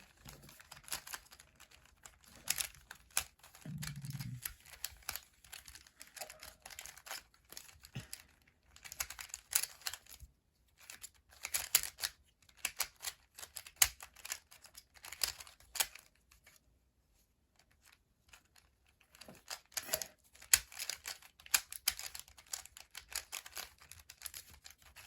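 Plastic twisted-cube puzzle being turned by hand during a speed-solve: rapid bursts of clicking and clacking, with a pause of about two seconds past the middle. The cube turns stiffly and poorly.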